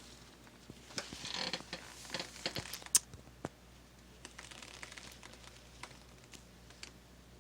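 A burst of clicks and rustling about a second in, with one sharper click near the middle, then scattered faint clicks: handling noise of small objects near the microphone.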